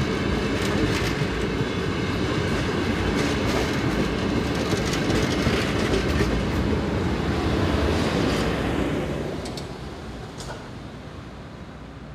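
The Sunlander passenger train's carriages rolling past in street running, with a steady rumble and wheels clicking over the rail joints. The sound fades away from about nine seconds in as the last carriage moves off.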